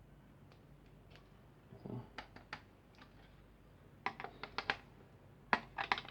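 Sharp clicks and taps of hard parts being handled and tried on a PC's board, with a soft thud about two seconds in and quick runs of several clicks near the middle and end.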